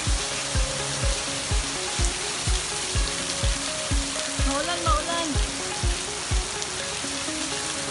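Rain falling steadily, a constant hiss, with background music keeping a steady beat of about two thumps a second.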